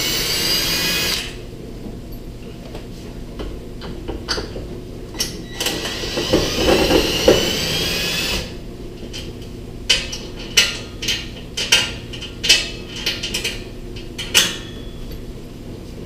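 Cordless drill-driver backing out trim screws: the motor whines for about a second at the start and again for about three seconds in the middle. Near the end comes a run of sharp clicks and taps.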